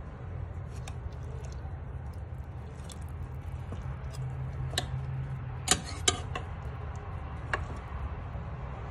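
Pot of chicken stew simmering on the stove: a steady low hum under a few scattered sharp pops and clicks, the loudest two close together just after the middle.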